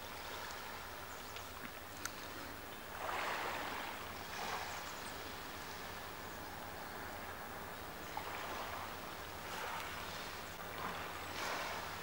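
Small waves washing onto a pebble beach, the rush of water swelling and falling back every few seconds over a steady low hum. Two sharp clicks, about two seconds in and about eight seconds in.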